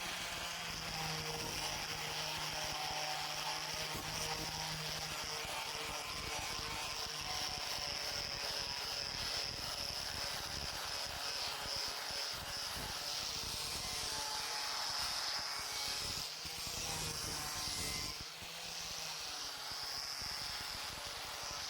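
An electric power tool's motor running steadily with a high whine and a low hum over a grinding hiss, easing briefly near the end before running on.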